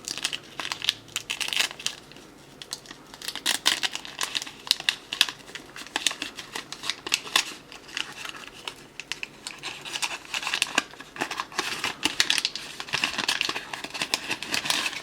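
Waxed-paper hockey card pack wrappers crinkling and tearing as they are pulled open by hand, a dense run of crackles and rustles.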